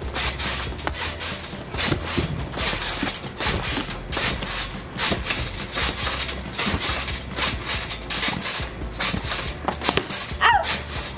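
Slime ingredients being stirred in a thin plastic bowl: repeated irregular clicking, scraping and crackling of the plastic, a few strokes a second.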